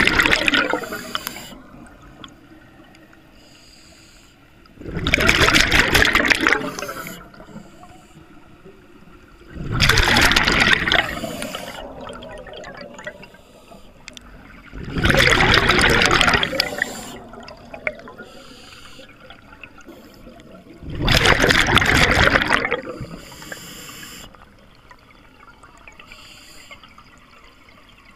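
Scuba diver breathing through an open-circuit regulator underwater: loud rushes of exhaled bubbles about every five seconds, each lasting about two seconds, with a faint hiss from the demand valve on each inhalation between them.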